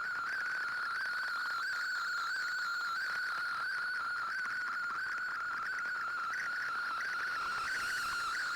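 Shortwave receiver audio of a digital-mode data broadcast: a steady, slightly warbling electronic tone near the middle of the audio band over a background of radio hiss.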